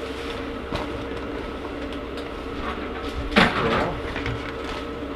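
Handling noise from fitting a bag into a shop vacuum: faint clicks and a short, louder rustle or scrape about three and a half seconds in, over a steady background hum.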